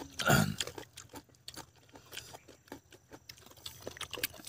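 Chopped raw green papaya being squeezed and mixed by hand in tamarind sauce in a steel bowl, giving a run of small wet clicks and crackles. There is one louder thud near the start.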